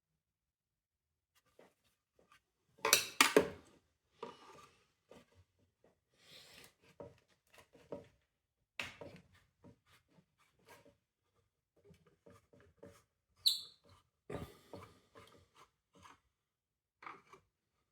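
Parts of a window vacuum cleaner being handled during disassembly: a cluster of sharp clicks about three seconds in, then scattered small clicks and rubbing, with a brief squeak and a knock a little past halfway.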